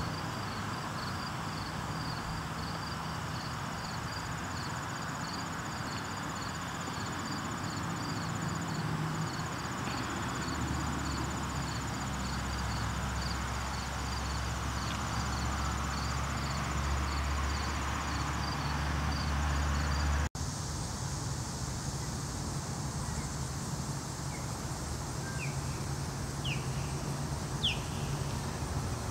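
Outdoor ambience: a steady low rumble of distant traffic under a regular high pulsing insect call. After a cut about two-thirds in, the pulsing stops and a few short rising bird chirps are heard.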